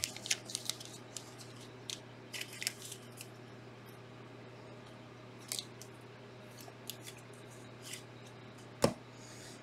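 Trading cards and plastic card holders being handled: scattered light clicks and rustles, with one sharper click near the end, over a faint steady hum.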